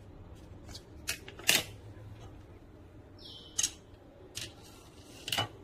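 Sharp plastic clicks and taps of a knife's plastic blade guard being handled and set down on a countertop, about five in all, the loudest about a second and a half in, with a short high squeak a little after three seconds.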